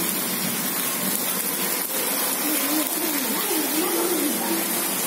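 Heavy rain falling, a loud, steady hiss. In the second half a faint voice rises and falls in pitch beneath it.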